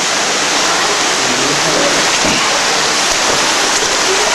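Steady rush of flowing water in a cave, an even, unbroken hiss.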